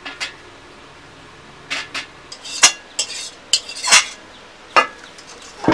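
Metal spatula scraping and clanking against a large metal cooking pan as food is stirred: about ten irregular, sharp scrapes and knocks, the loudest near the middle.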